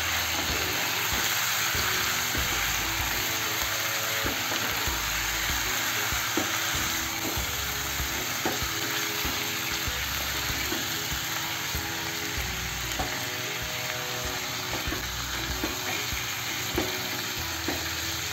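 Marinated chicken sizzling steadily in hot ghee in a nonstick kadhai while being stirred with a spatula, with occasional light taps of the spatula against the pan.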